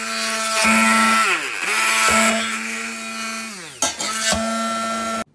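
Immersion stick blender running in a stainless steel pot, blending chunks of dragon fruit. Its motor hum twice drops in pitch and winds down before speeding up again, with a few short knocks, then cuts off sharply near the end.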